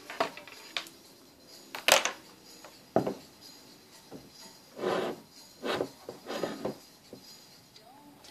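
Irregular rubbing and scraping noises, about half a dozen short scuffs, with one sharper knock about two seconds in. No balloon pop.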